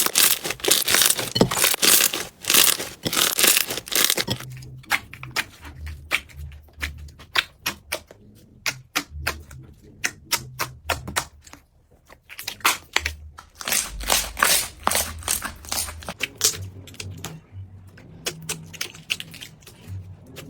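Slime being squeezed and worked by hand: dense crackling for the first four seconds or so, then sparser clicks and pops with short quiet gaps.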